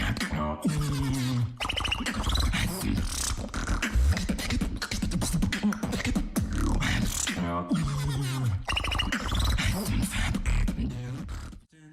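Beatboxing built on an inward liproll: a fast fluttering lip roll over pitched bass tones that glide up and down, one phrase repeating about seven seconds later. It cuts off just before the end.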